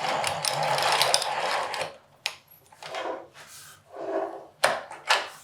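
Twin Turbo twin-screw vise being cranked, its screws running with a steady mechanical whirr that stops about two seconds in. A few separate knocks and clicks follow.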